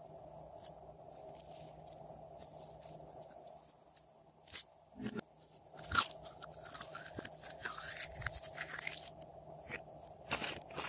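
Glossy slime being pulled and squeezed by hand: from about four seconds in, sticky crackling with sharp pops and clicks.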